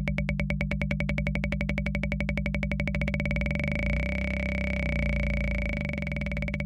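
Univox drum machine playing a very fast run of electronic hits, about ten a second, with a steady two-note ring over a low drone. Around the middle the hits blur into a continuous tone, then separate again near the end.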